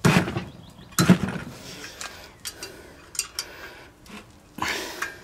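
A steel combination wrench clinking and knocking against the exhaust nuts and muffler of a 79cc Predator small engine as the nuts are worked loose. Sharp metal knocks come at the start, about a second in and again near the end, with lighter clinks between.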